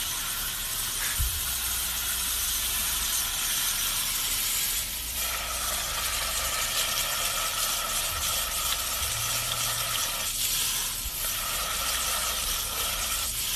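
Garden hose spray nozzle jetting water into a mud-clogged truck exhaust pipe, a steady hissing spray with muddy water splashing out of the tailpipe.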